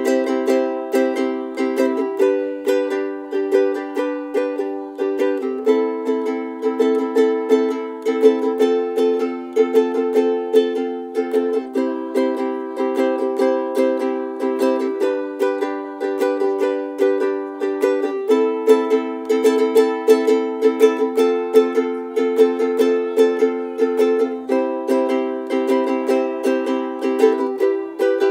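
Background music: quickly picked notes on a plucked string instrument, with the chord changing every few seconds.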